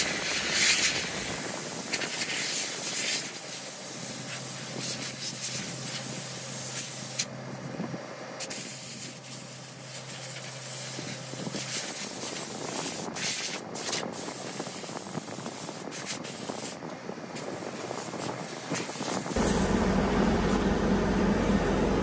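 Compressed-air blow gun hissing as it blasts dirt and dust off the steel floor of a scraper bowl, easing off briefly a few times. About nineteen seconds in, the hiss gives way to a low steady rumble with a hum.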